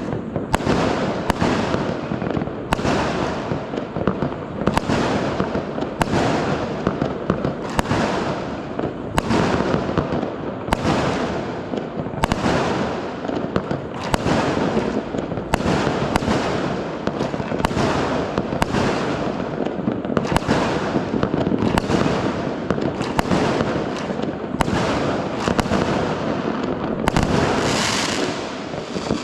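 Fireworks going off nonstop: a dense crackle with a sharp bang about once a second. Near the end comes a hissing burst.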